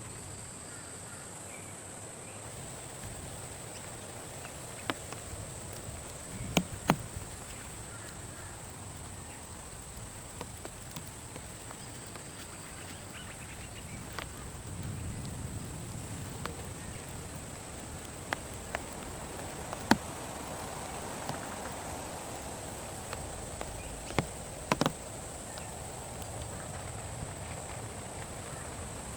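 Steady high-pitched insect drone over a soft background hiss, broken by about ten scattered sharp taps.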